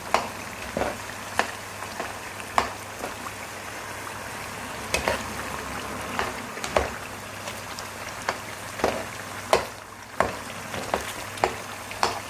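Diced potatoes sizzling in hot oil in a frying pan, with a steady hiss and sharp knocks of a spoon against the pan about once a second as they are stirred.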